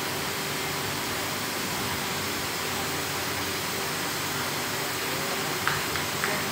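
Steady drone of industrial plant machinery: an even rushing noise with a low hum running under it.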